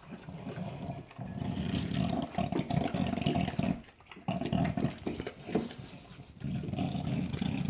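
A dog at the food bowls making low, rough rumbling sounds in several spells of a second or two, with short pauses between them.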